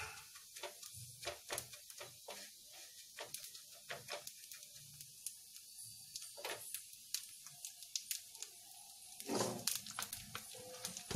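Cumin seeds roasting in a little oil in a non-stick pan, stirred with a wooden spatula: scattered small clicks and light scrapes, with a denser stretch of scraping a little after nine seconds in.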